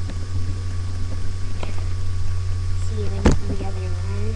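Steady low electrical hum picked up by the webcam microphone, with one sharp click a little over three seconds in and a faint voice-like murmur near the end.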